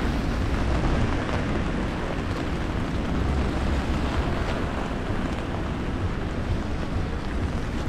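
Steady rain on a city street: an even wash of rain noise over a low, unsteady rumble of wind on the microphone.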